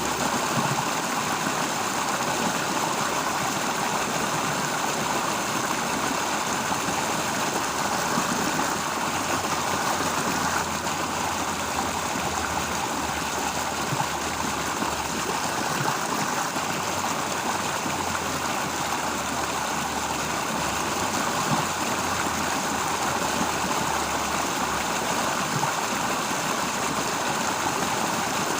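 Flowing stream: a steady, even rush of water.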